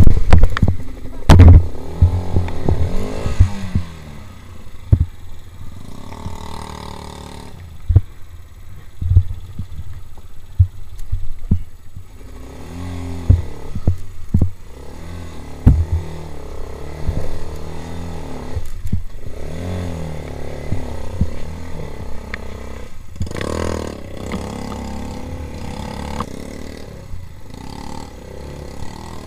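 Small four-stroke quad bike engine revving up and easing off again and again while riding over rough ground, with frequent knocks and clatter from the bouncing machine; the loudest hits are right at the start.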